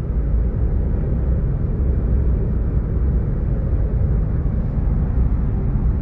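Steady road and engine noise inside the cabin of a moving car, heaviest in the low end.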